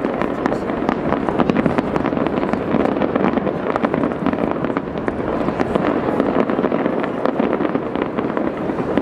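Large aerial fireworks display: many shells bursting in rapid, overlapping bangs and crackles with no pause between them.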